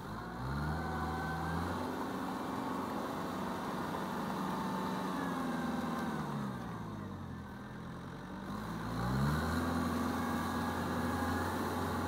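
Kubota tractor's diesel engine running under load as it works a rear rotary tiller through flooded paddy mud. The engine note drops and then picks back up twice: once near the start and again from about six to nine seconds in.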